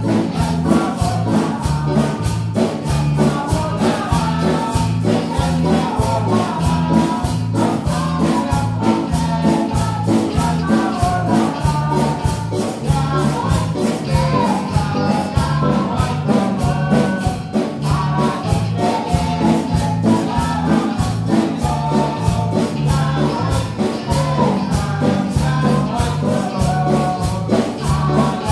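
A small live band playing a praise song: electric guitar, bass guitar and keyboard, with a metal shaker keeping a steady rhythm and singers on microphones.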